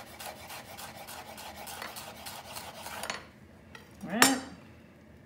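Chef's knife chopping fresh chives on a wooden cutting board: rapid, even strokes with the blade tip staying on the board, stopping about three seconds in. A single short, louder sound follows about a second later.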